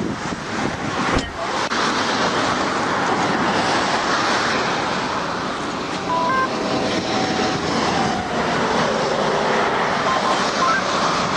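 Steady rush of highway traffic and wind noise picked up by a patrol car's dashcam microphone on the road shoulder, with a single knock about a second in.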